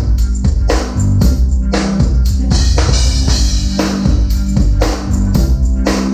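A band playing with a steady beat on a drum kit, kick and snare hits, over low bass notes.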